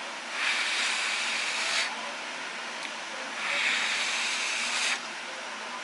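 A person blowing on a chopstickful of hot ramen noodles to cool them: two long, breathy blows, each about a second and a half, with a pause between.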